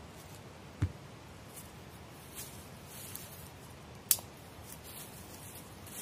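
A machete strikes a thin stick once about four seconds in with a sharp, crisp crack. A dull thud comes a little under a second in, with faint rustling in dry leaf litter around both.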